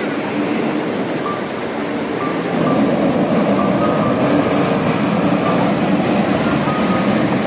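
A heavy dump truck drives through fast-flowing floodwater close by, its engine running under the rush and splash of the muddy water; the noise grows louder about two and a half seconds in as the truck comes alongside.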